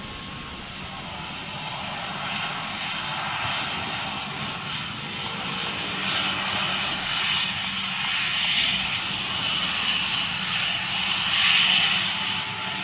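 Jet engines of a Batik Air narrow-body airliner running at low thrust as it taxis and turns on the runway, a steady rushing whine that slowly grows louder and peaks near the end as the aircraft swings toward the listener.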